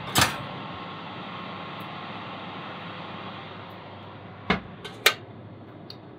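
Oven running with a steady hum. Just after the start comes a sharp metallic knock as a clamped metal assembly is set down on the oven's wire rack. About four and a half seconds in the oven door thuds shut, with a second, sharper knock half a second later as it latches.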